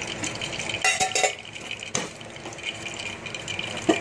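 Metal kitchenware clinking and knocking: a cluster of clinks about a second in, another near two seconds and a sharper pair near the end, over a steady background hiss.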